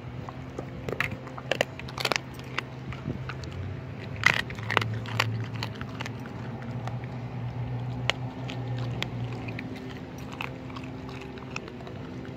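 Czechoslovakian Wolfdog chewing raw chicken on the bone right at the microphone, with irregular sharp crunches and cracks, the loudest about four seconds in.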